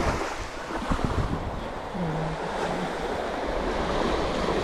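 Small waves breaking and washing up the sand close by, in a steady wash, with wind rumbling on the microphone.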